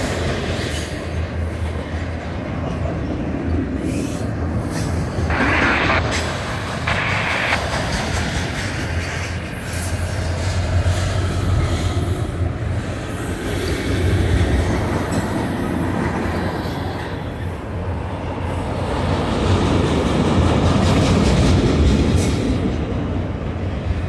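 Loaded autorack freight cars rolling past at track speed: a steady rumble of steel wheels on rail with clattering over the joints. There are a couple of brief, higher-pitched hisses from the wheels about five and seven seconds in.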